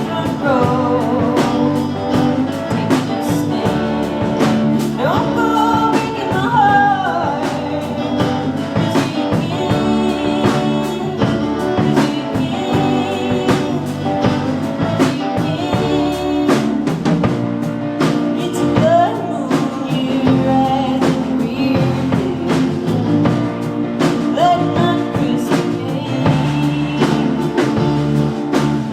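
Live rock band playing a song: electric guitars, bass and drum kit with a sung vocal line.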